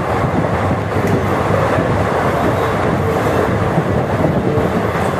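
Steady rumble of a passenger train coach running at speed, wheels rolling on the rails with wind noise rushing past.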